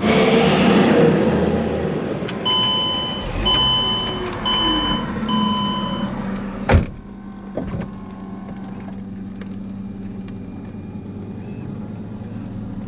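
A Mercedes-Benz car surges loudly at first, then four short electronic chimes sound about a second apart. A single sharp knock follows, and after it the car settles into a steady low hum with a constant tone.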